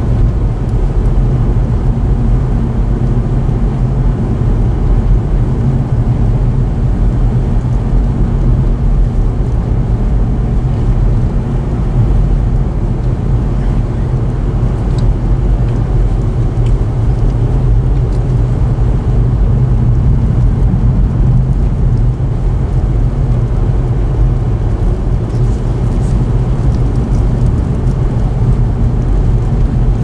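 Steady low rumble of a car, with blizzard wind mixed in.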